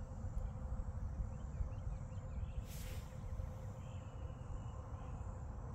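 Outdoor ambience of insects chirping and buzzing faintly, with a brief high hiss swelling up about two and a half seconds in, over a steady low rumble.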